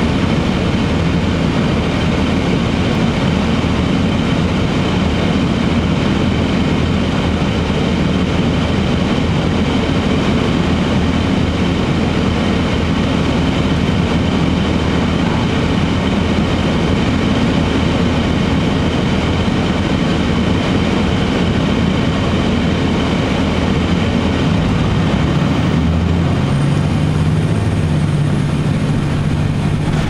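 Cummins ISC inline-six diesel of a 2002 Blue Bird CS transit bus idling steadily, heard from inside the cabin. About 25 seconds in the engine pitch climbs as the bus pulls away under power.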